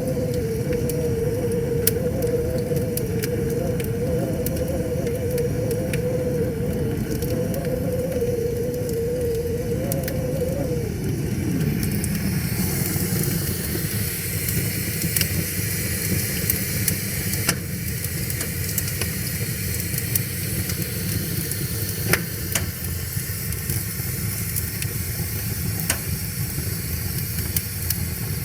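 Wood fire crackling and popping over the steady rush of a river. A wavering droning hum holds for the first ten seconds or so, then slides down in pitch and fades, after which a brighter hiss comes up.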